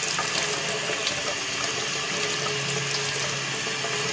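Kitchen tap running steadily into a stainless steel sink, the stream splashing into and over a small plastic test tube held under it as it fills.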